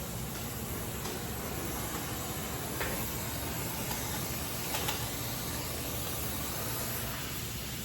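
Gas welding torch flame hissing steadily while flame welding aluminium, with a couple of faint ticks.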